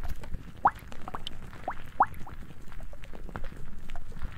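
Pills being popped out of a plastic blister pack: short rising squeaks as the blisters are pressed, two strong ones and several fainter ones, among small crinkling clicks.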